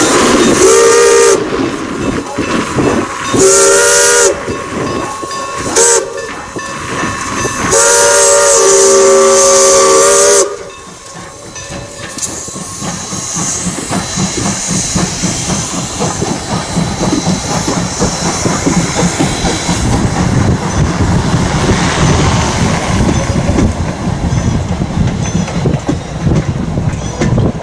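Steam locomotive's chime whistle (the Strasburg Rail Road 'ghost whistle') blowing two long, one short and one long blast, the grade-crossing signal. The train then runs past, its wheels clicking over the rail joints in a steady rhythmic rumble.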